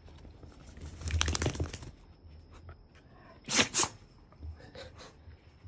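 Shiba Inu dog sneezing, two quick sneezes a little past halfway. A second of rustling and clicking comes first, about a second in.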